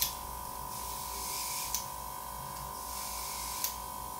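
Nail airbrush spraying blue gel colour in short hissing bursts, each cut off with a sharp click, over a steady hum.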